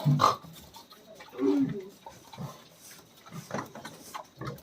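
Short, irregular calls from farm animals, four or five separate calls.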